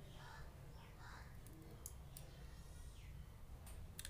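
Faint small plastic clicks as a Canon IXUS 190 compact camera's battery and memory-card compartment is handled, a few sharp ones about two seconds in and near the end, over a low steady hum.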